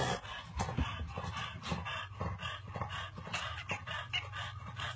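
French bulldogs making a quick, uneven run of short dog sounds, about three a second.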